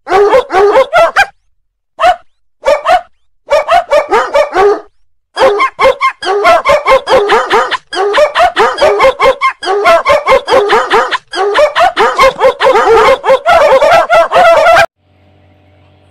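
A dog barking in rapid, high-pitched yaps, in short groups at first and then almost without a break, cutting off abruptly about a second before the end. Faint music follows.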